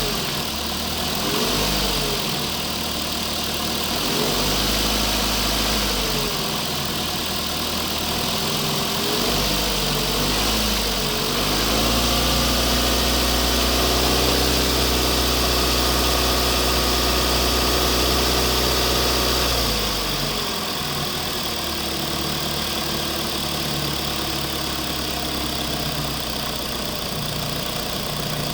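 Motors of RC construction machines running, an engine-like drone whose pitch rises and falls several times, then holds higher and steady for about eight seconds before dropping back to a lower, steady run.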